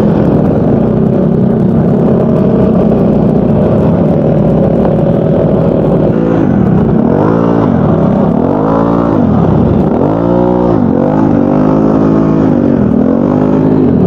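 Yamaha Mio Gravis 125cc scooter engine running steadily, then revving up and down over and over, about every second and a half from halfway in, as its rear tyre slips in soft sand.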